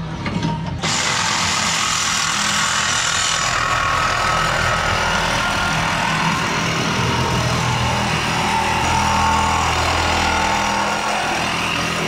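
A power tool running steadily, cutting in suddenly about a second in: a harsh hiss with a wavering whine over a low hum.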